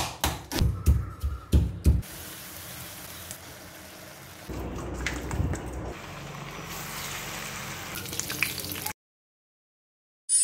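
A kitchen knife chopping onions on a board, about six quick chops, then hot oil sizzling and crackling steadily in a pan as marinated chicken deep-fries. The sizzle cuts off suddenly about nine seconds in.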